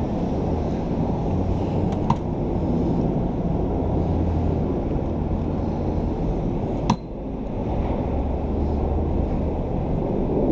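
City street traffic with a pickup truck's engine running as it drives slowly past close by, over a steady rush of wind on the microphone. There is a faint click about two seconds in and a sharp, louder knock about seven seconds in.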